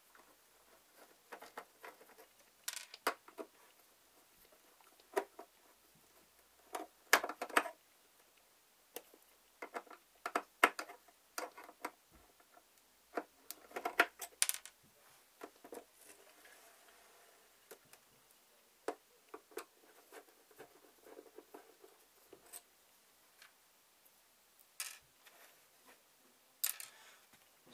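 Hand screwdriver turning out small screws from a metal end plate: scattered clicks, short scrapes and small metallic clinks, some in quick clusters, with quiet gaps between.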